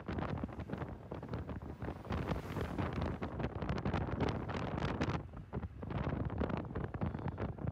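Wind buffeting the microphone on a moving motorcycle in traffic: a rough rushing noise that swells and drops in quick gusts.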